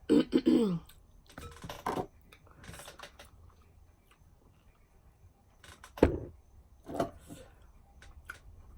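Close-miked eating and drinking mouth sounds: a short voiced mouth sound at the start, scattered smacks, and a sharp low knock about six seconds in, the loudest sound.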